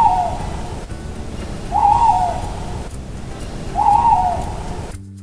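Owl hooting: three hoots about two seconds apart, over a steady low background noise.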